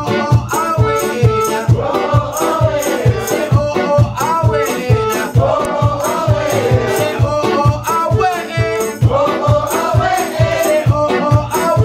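Live acoustic band playing an upbeat song: a steady cajon beat with a rattling, shaker-like high percussion, acoustic guitar, bass guitar and melodica, with a shifting melody line over it.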